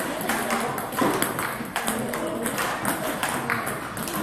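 Table tennis rally: many quick, sharp clicks of the celluloid ball striking paddles and bouncing on the table, as a player returns forehand chops.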